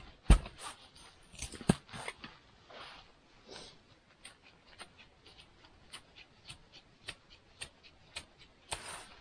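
Knife shaving thin curls off a piece of firewood for kindling: short scraping strokes, about two a second, with a few louder knocks in the first two seconds.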